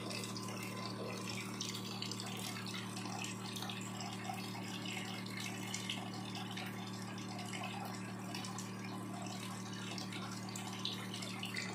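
AMRO C-5 Plus reverse-osmosis unit's booster pump running with a steady low hum, water trickling through the system.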